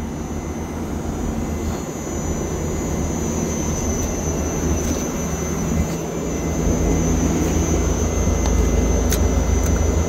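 Trane TVR 7G DC-inverter VRF outdoor unit running in its automatic commissioning test run: a steady fan whoosh over a low compressor hum, with a thin steady high tone. It grows louder over the second half.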